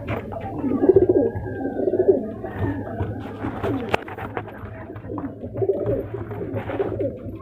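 Several pigeons cooing over and over, overlapping low warbling coos, with a steady low hum underneath and a sharp click about four seconds in.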